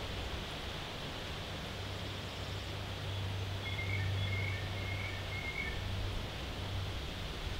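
Steady outdoor wind rustle in the trees over a low rumble. A bird gives a short run of four quick chirps about halfway through.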